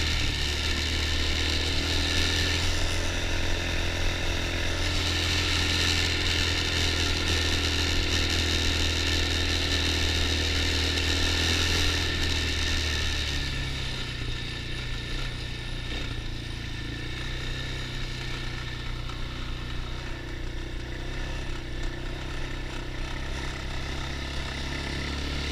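Small petrol engine of a child's ATV running steadily under throttle; about halfway through the engine note changes and the sound gets quieter as it eases off.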